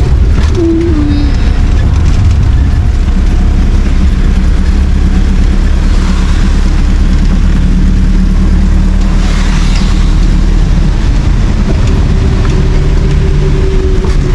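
A motor engine running steadily with a loud, even low drone, heard close up. A short pitched tone steps down in pitch about half a second in.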